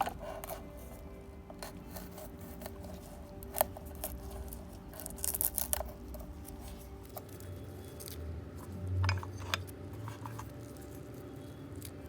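Faint background music under a run of small sharp clicks and short scraping sounds from tiny kitchen utensils being handled.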